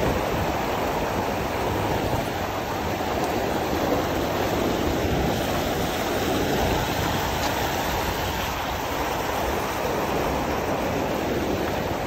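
Choppy water washing and splashing against shoreline rocks, a steady rushing noise.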